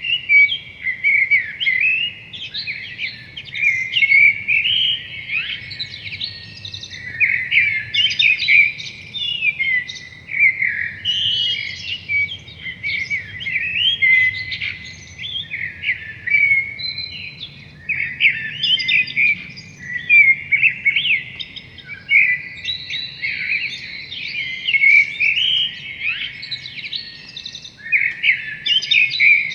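Songbirds singing in a woodland spring chorus: a dense, unbroken stream of quick overlapping chirps, twitters and trills.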